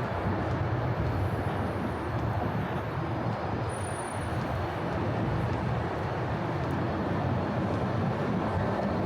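Steady low rumble of passing vehicles, a continuous city traffic noise with no distinct events.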